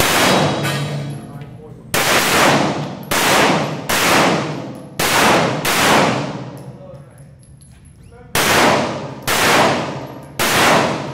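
Pistol shots, about ten, fired in quick strings roughly a second apart with a pause of about two and a half seconds midway. Each shot rings out in a long echo off concrete walls.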